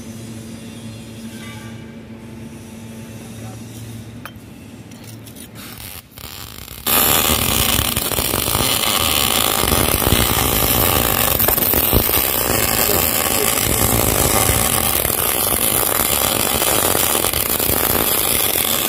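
Electric arc welding on thick steel plate: a steady, dense crackling hiss of the arc that starts abruptly about seven seconds in. Before it, quieter shop noise with a low hum and a few light clinks.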